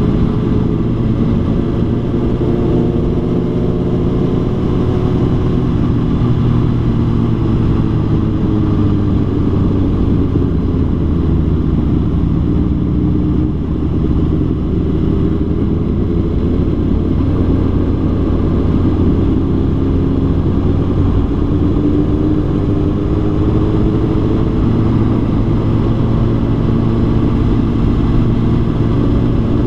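A vehicle engine running steadily at cruising speed, its pitch drifting slowly up and down, over constant road and wind noise.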